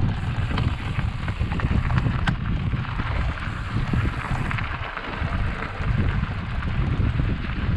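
Wind buffeting the microphone of a bike-mounted action camera over the crunch of a Trek 1120 bicycle's tyres rolling on gravel, with a few light clicks.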